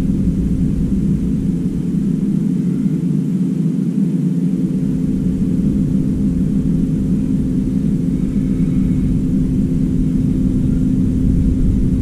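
Steady low mechanical hum and rumble, with one constant droning tone.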